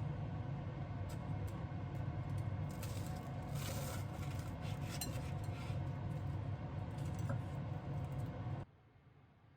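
Kitchen utensils and dishes clinking and scraping over a steady low hum, stopping suddenly near the end.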